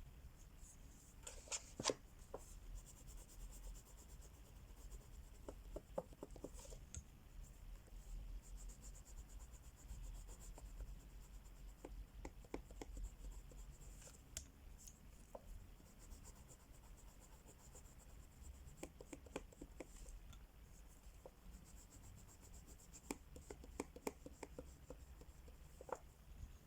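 Crayola wax crayons rubbing on coloring-book paper, faint strokes with scattered small ticks in clusters.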